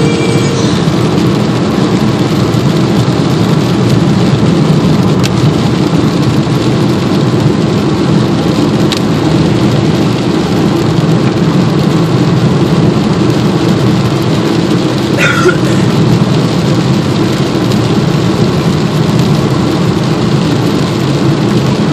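Steady noise inside a car's cabin while driving on a wet road in the rain: tyre and road noise on wet pavement and rain on the car, with the engine running underneath. A brief squeak comes about two-thirds of the way through.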